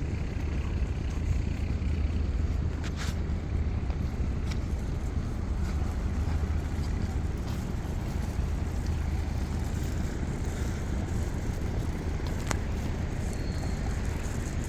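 Steady low rumble of night-time riverside city ambience, with distant ship and traffic engine drone, and a couple of faint brief clicks.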